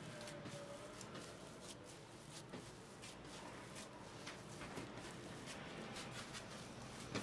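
Hands kneading dough on a floured wooden tabletop: faint, irregular pats, presses and scuffs, with a sharper tap near the end.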